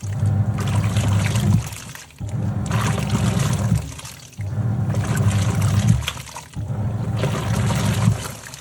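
Top-loading washing machine agitating a load: the motor hums and the water sloshes as the pulsator turns for about a second and a half, pauses briefly, then turns again, four strokes in a steady rhythm.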